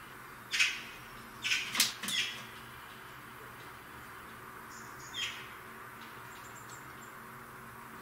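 A Eurasian blackbird shifting and hopping on a feeding tray: short rustling scuffs with a sharp tap in the first couple of seconds, and one more scuff about five seconds in.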